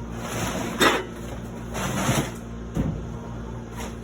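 Things being moved and handled: a scrape ending in a sharp knock about a second in, another scraping rustle around two seconds and a short thump near three seconds, over a steady low hum.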